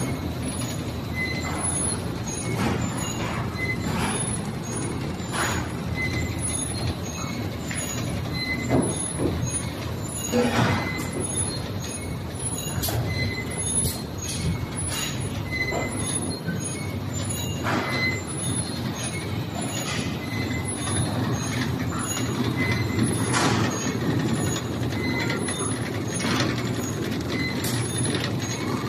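Filter paper pleating machine running steadily: a continuous mechanical clatter with a short high squeak repeating at regular intervals and an occasional sharp knock.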